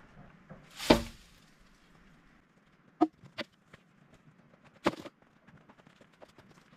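Wooden boards knocking and clattering as they are handled and dropped onto the ground: a loud knock about a second in, two quicker knocks a couple of seconds later, and another near the middle. Footsteps on dry leaves and earth fill the gaps.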